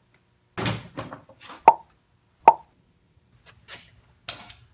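Hands handling car trim parts, with rustling and two sharp, ringing clicks about a second apart in the middle.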